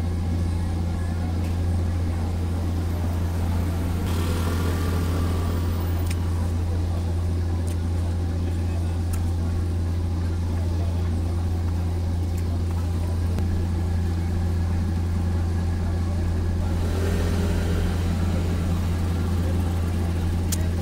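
Steady low hum of an idling engine, unchanging throughout, with light street noise swelling briefly about four seconds in and again near the end.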